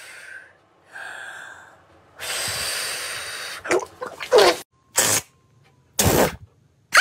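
A man drinking noisily: airy sucking and slurping, the longest and loudest lasting about a second and a half, then a couple of short voiced gasps and two sharp, loud breathy bursts near the end.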